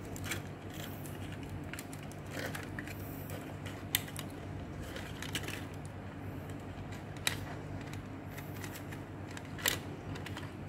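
Scattered small clicks and rattles of a projector's power supply board and its wiring being handled and pulled free, over a steady low hum. The sharpest clicks come about four seconds in, about seven seconds in and near the end.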